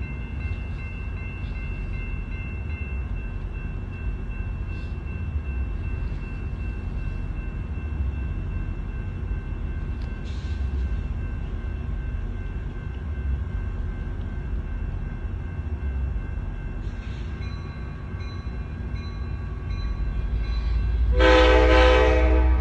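A steady low rumble, then about 21 seconds in a loud blast from the air horn of a Sounder commuter train's EMD F59PHI locomotive that carries on past the end.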